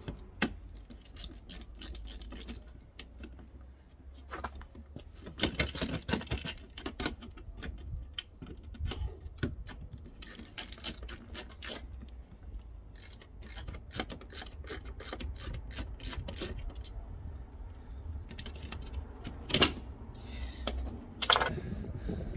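Irregular plastic clicks, scrapes and rubbing as hands work at the lower grille trim of a VW Passat B6's front bumper, with two sharper clicks near the end, over a low steady rumble.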